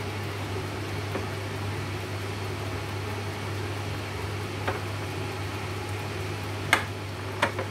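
Pot of chicken curry simmering on an electric cooktop over a steady low hum, with a few short clicks of bubbling sauce, the sharpest a little before the end.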